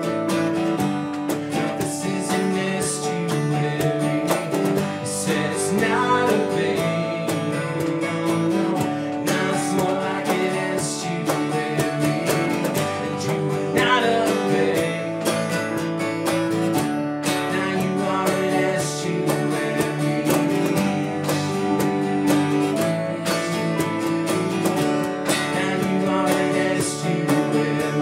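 A small band playing an instrumental passage live: strummed acoustic guitar over electric bass and a Nord Electro stage keyboard.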